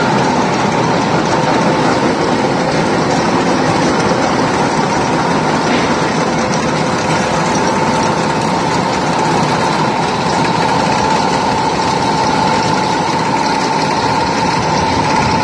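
Hot rolling mill for rebar running: a loud, steady mechanical din of roll stands, drive spindles and electric motors, with a steady whine over it.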